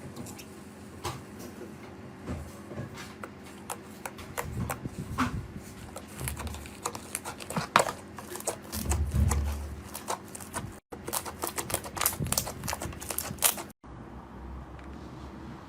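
Slime being pressed and squished by hand, giving quick sticky clicks and pops that come thicker and louder in the second half. The sound cuts out briefly twice.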